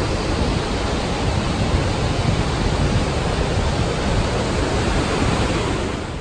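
Steady, loud rushing roar of the river and rapids in the gorge below the bridge.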